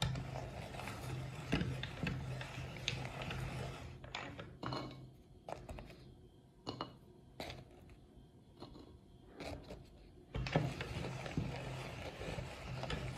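Metal meat grinder crushing Oreo cookies in its feed screw: a dense crunching grind for the first four seconds, then a stretch of separate clicks and knocks as cookies are pushed down into the hopper, and steady grinding again from about ten seconds in.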